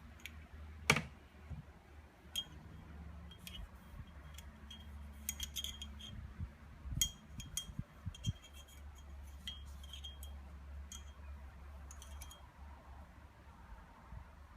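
Small metallic clicks and clinks of pistol parts being handled, with one sharper knock about a second in, over a steady low hum.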